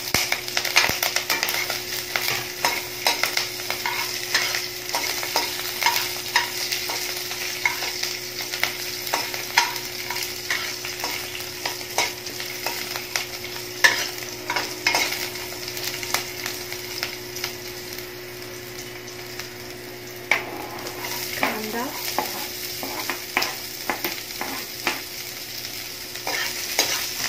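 Green chillies frying in hot oil with mustard and cumin seeds in a kadhai, sizzling steadily while a metal spatula stirs and scrapes the pan with frequent sharp clicks.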